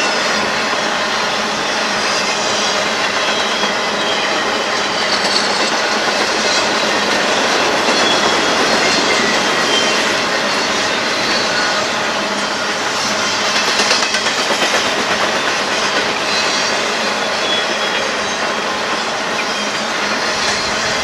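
Empty intermodal spine cars rolling past, their steel wheels running steadily over the rails with a clattering beat and a faint, on-and-off high-pitched wheel squeal.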